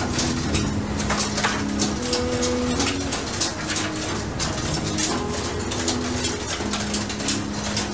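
Machinery on a longline fishing vessel humming, with held low tones that step in pitch, under a constant clatter of metal clicks and rattles from longline hooks being slid along the magazine rails.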